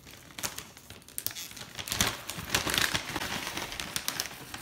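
Plastic snack bag of Stonefire naan crisps crinkling as it is handled, a dense crackle that is loudest about two to three seconds in.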